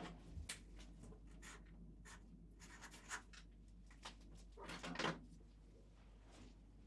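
Pen writing on paper: a few short, faint scratching strokes, the loudest about five seconds in.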